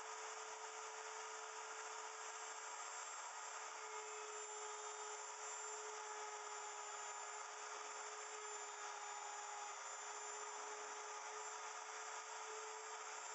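Wood router motor running steadily with a constant whine, as it mills a small block of wood.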